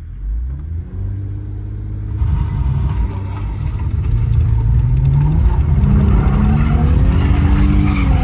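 Infiniti Q50 Red Sport's twin-turbo V6 under full throttle, its pitch climbing slowly over several seconds and dropping back near the end. The rear tyres don't spin, which the owner puts down to the car being in limp mode.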